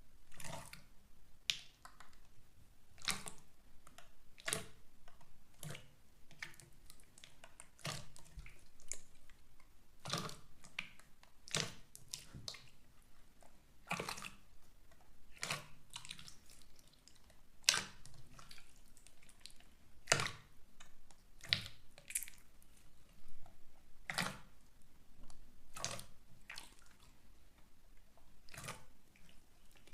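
Slime being squeezed and pressed by hand, giving sharp sticky clicks and pops at an irregular pace, roughly one a second.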